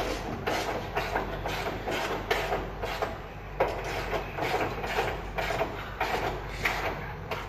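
Irregular clattering and scraping from hand tools and parts being worked on in a car's engine bay, a few knocks a second, over a steady low workshop hum.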